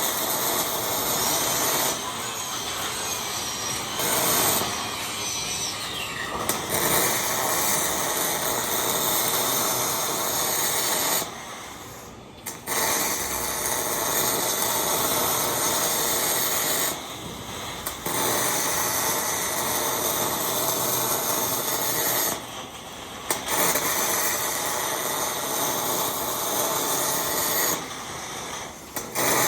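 MIG welding arc on hex mesh, crackling and hissing in steady runs of several seconds, with four short pauses of about a second between welds.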